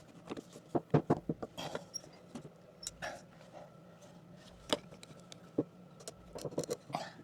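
Irregular clicks, taps and knocks of hand tools and PEX pipe fittings being handled at close range, with a quick cluster of them near the end.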